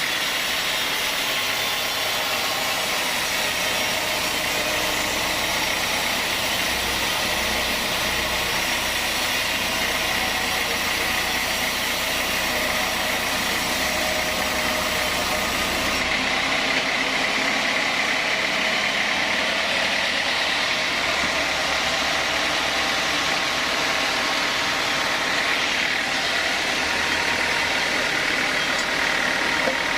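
Sawmill machinery running steadily: an even motor drone with a faint high whine, with no cutting strokes or impacts standing out.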